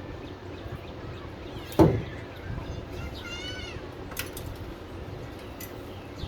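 A single loud knock, like something metal being set down or bumped, about two seconds in. It is followed by a short warbling chirp and a lighter click over steady background noise.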